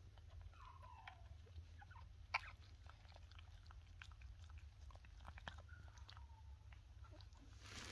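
Newborn cavoodle puppies suckling at their mother: faint wet clicks and smacks, with a faint squeak falling in pitch about half a second in and one sharper click about two and a half seconds in.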